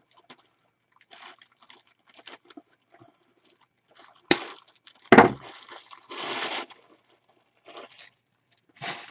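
Wire cutters snipping through the wired stem of an artificial floral pick: a sharp click about four seconds in and a heavier snap just after, among rustling of the pick's plastic sprays.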